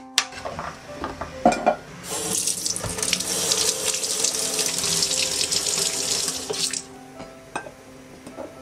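Kitchen tap water running into a stainless-steel sink as eggs are rinsed under it by hand, starting about two seconds in and stopping after about five seconds. Before it, a knife knocks twice on a cutting board.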